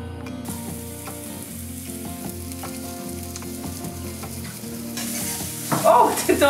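Food sizzling in a hot frying pan, the hiss growing stronger about five seconds in.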